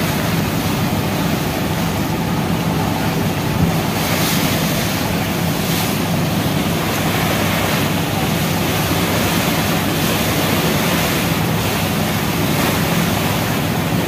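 Loud, steady rush of churning river water foaming along the side of a moving passenger launch, with wind buffeting the microphone and the launch's engine droning low underneath.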